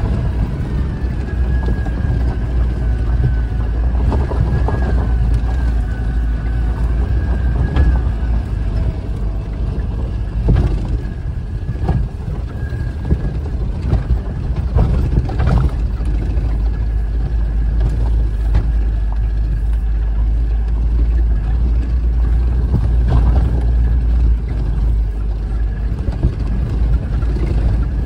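Vehicle engine running at low speed with a heavy low rumble while driving over a rough, rocky dirt road, with occasional knocks and rattles as it jolts over stones and ruts.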